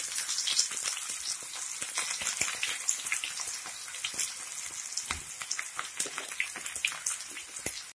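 Banana-flower pakoda pieces deep-frying in hot oil in a kadai: a steady sizzle with many small crackling pops.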